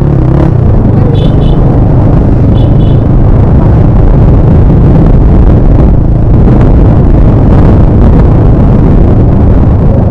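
TVS Apache RTR 160 motorcycle's single-cylinder engine and exhaust running while being ridden, a steady low rumble. Two short pairs of high beeps sound about a second in and again near three seconds in.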